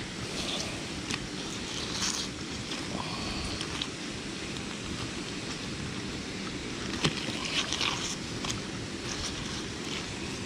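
Steady rushing noise, mostly wind on the camera microphone, with a few short clicks and scrapes from gloved hands handling a fishing magnet covered in mud and metal scrap.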